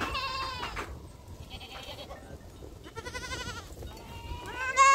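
Goats bleating: several quavering calls, the last one the loudest, rising and then falling in pitch near the end.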